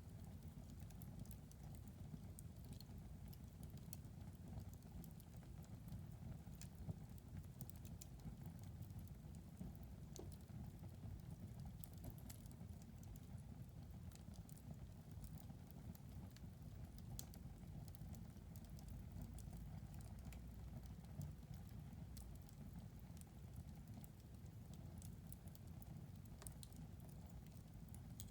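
Wood fire crackling in a fireplace: irregular small pops and snaps over a quiet, steady low rumble of burning.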